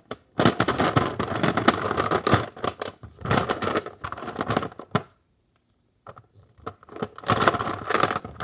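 Fingers rubbing and scratching against the recording phone's microphone, making a very loud, scratchy crackle in bursts that stops for about a second past halfway, then starts again.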